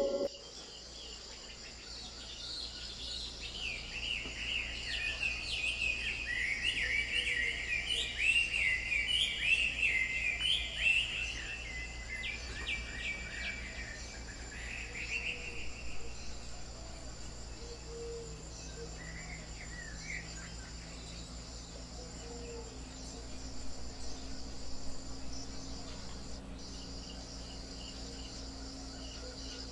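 Forest ambience: crickets trilling steadily throughout, with a bird singing a rapid run of chirps over the first half and briefly again about two-thirds of the way through, over a low steady rumble.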